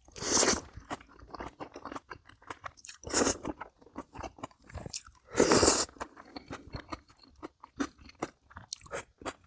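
A person eating close to the microphone, with wet chewing and crunching through a rapid run of short clicks. Three louder half-second bursts come just after the start, about three seconds in and about five and a half seconds in.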